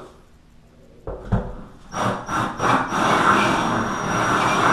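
Cordless drill driving a 3/4-inch diamond-tipped hole saw into wet porcelain tile. After a knock about a second in, the drill starts in a few short bursts, then grinds steadily into the tile.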